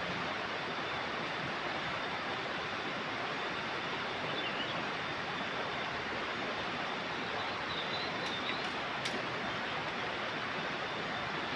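Steady rush of flowing river water, with a few faint high chirps and light clicks around eight to nine seconds in.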